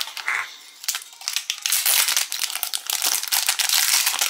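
Thin clear plastic wrapper crinkling as hands pull it off a small metal trinket. A short crackle comes at the start, then dense crinkling from about a second in.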